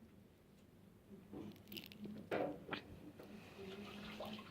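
Faint wet squishing and a few soft clicks of glue-and-borax slime being stirred in a bowl, mostly between about one and three seconds in.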